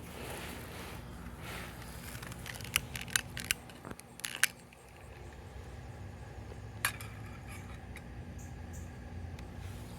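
Light metallic clinks and clicks from handling a small titanium pot and alcohol stove during setup and lighting, with a quick cluster of sharp clicks about three to four and a half seconds in and one more near seven seconds.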